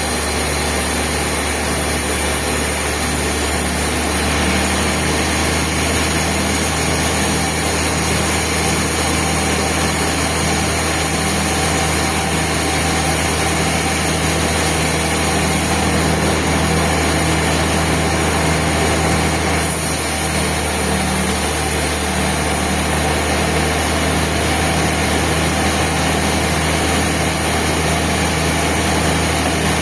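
Band sawmill running steadily, a constant low motor drone under a hiss. The high hiss shifts about four seconds in and again about twenty seconds in.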